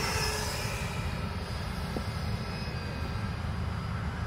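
Radio-controlled model aircraft, a Mirage 2000 jet and a Cessna, flying overhead. A high whine drops in pitch as the jet passes at the start, over a steady low rumble.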